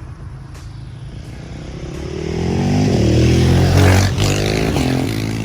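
Motorcycle passing by, really loud. Its engine note swells to a peak about four seconds in, then drops in pitch and fades as it moves away.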